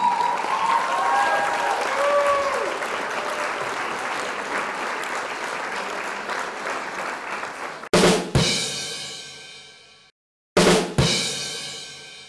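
Intro music: a hissy, shimmering wash with a few gliding tones, then two pairs of hard drum-and-cymbal hits about two and a half seconds apart, each ringing out and fading away.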